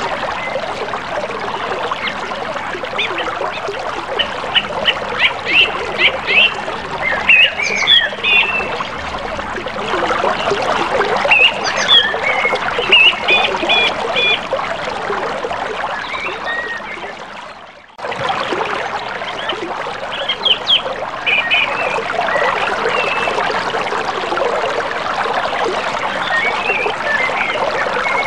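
Rushing river water over shallow rapids, a steady wash of noise, with birds calling in short runs of repeated calls over it. The sound fades out about two-thirds through and cuts straight back in.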